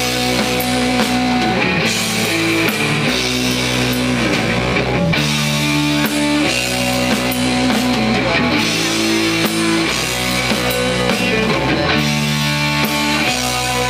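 Live rock band playing an instrumental passage on electric guitars and drum kit, with held chords that change every second or two.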